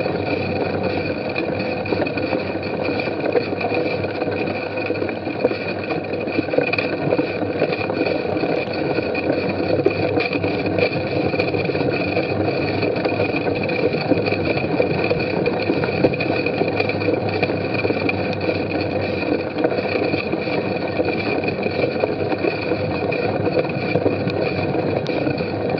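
Steady riding noise of a bicycle being pedalled over a grass, mud and wood-chip race course, heard from a camera on the bike: tyres rolling and the frame and chain rattling, with a constant high tone running underneath.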